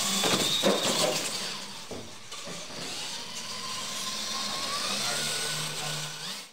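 Radio-controlled monster trucks racing flat out, their electric motors whining higher as they gather speed, with tyre noise and a few sharp knocks in the first second. The sound cuts off suddenly at the end.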